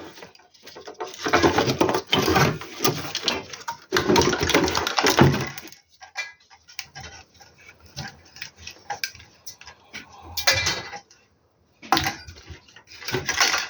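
Clattering and rattling of metal parts and tools being handled, in irregular bursts with scattered clicks between them.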